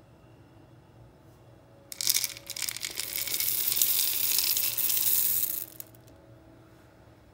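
Dark chocolate chips poured into a stainless steel mixing bowl of cookie dough: a dense rattle of small hard chips hitting the dough and the metal bowl. It starts suddenly about two seconds in and stops near six seconds.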